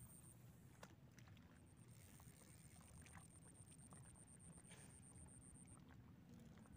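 Near silence: faint outdoor ambience with a low rumble, a thin steady high tone that drops out twice, and a few faint ticks.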